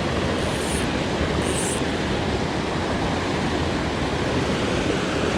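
Small mountain creek rushing over rocks, a steady wash of water noise.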